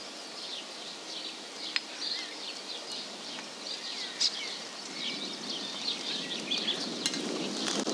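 Songbirds chirping and singing, with a sharp click about two seconds in and a soft rustling noise building over the last few seconds.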